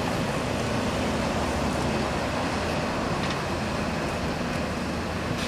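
Steady city street traffic noise, with vehicle engines running at an intersection.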